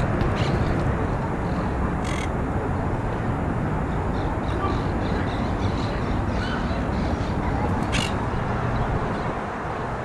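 Monk parakeets calling with short harsh squawks and fainter chirps, two louder squawks about two seconds in and near the end, over a steady low rumble.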